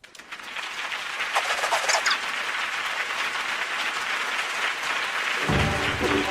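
Cartoon audience clapping, a steady crackle of applause that swells in from silence. About five seconds in, music starts underneath it.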